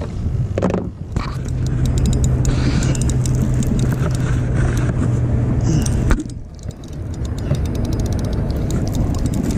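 Boat motor running with a steady low hum that cuts off about six seconds in, over wind-blown noise and a fast run of small clicks.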